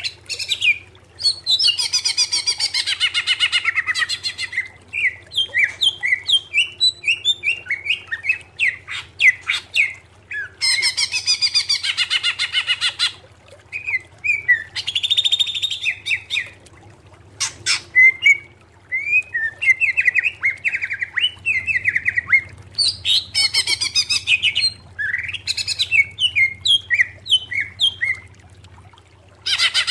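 Male greater green leafbird (cucak ijo) singing a loud, varied song. Several bursts of very fast rattling trills, each a couple of seconds long, alternate with quick whistled and slurred chattering notes.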